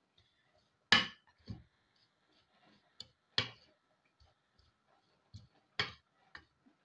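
Metal spoon knocking and scraping against a ceramic bowl while stirring dry ground spice powder, about seven sharp clinks spread irregularly through the stretch, the loudest about a second in.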